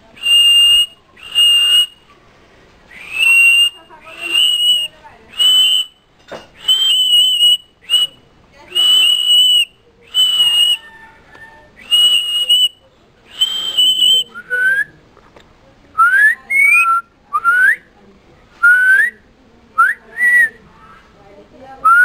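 Repeated whistling: about a dozen level, high whistles, roughly one a second, each with a breathy hiss. About two-thirds of the way in they change to short whistles that slide upward.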